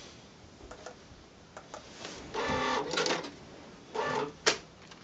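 Star TSP700II receipt printer printing an end-of-day audit report after a few light keypad presses: about a second of loud printing noise, a shorter burst, then a sharp snap near the end.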